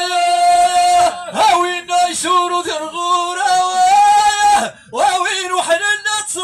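A lone man chanting Amazigh poetry in long, held notes, with no instruments. There is a short break for breath about five seconds in.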